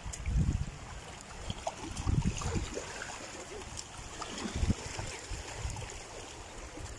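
Wind buffeting the phone microphone in low, irregular rumbles, strongest near the start, around two seconds in and again near five seconds, over a steady hiss from the open shore.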